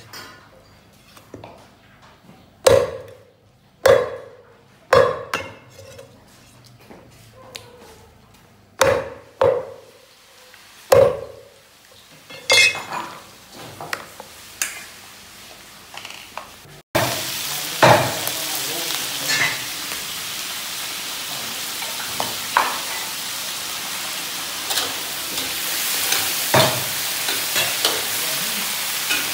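A cleaver chopping turtle meat on a thick round wooden block, a string of sharp, uneven chops. About halfway through this gives way to meat sizzling in a large wok over a gas burner, with a metal spatula stirring and clinking against the pan.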